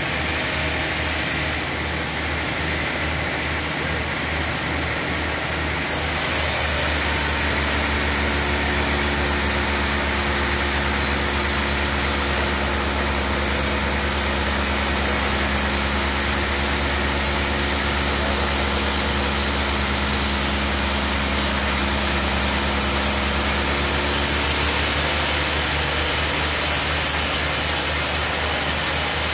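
Band sawmill running with a steady low hum. From about six seconds in, its blade cuts through a thick wooden slab, adding a hiss and a steady higher drone that eases off a few seconds before the end.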